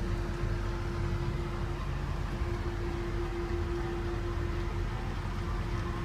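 Steady mechanical hum and hiss from a car, with one constant mid-pitched tone held throughout.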